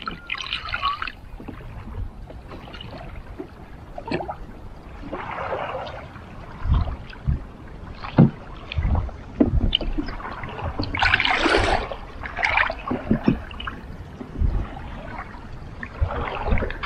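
Water lapping and splashing against the side of a wooden canoe being poled along, with irregular splashes every few seconds, the biggest about eleven seconds in, and scattered low knocks.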